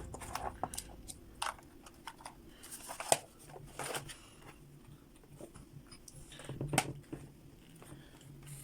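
Scattered light clicks and knocks of small parts being handled while an RC truck is worked on, the sharpest about three seconds in and again near seven seconds.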